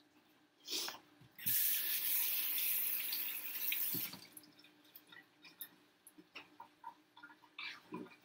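Kitchen tap running for about two and a half seconds as sticky orange juice is rinsed off hands, then shut off. A few light knocks and clicks before and after it.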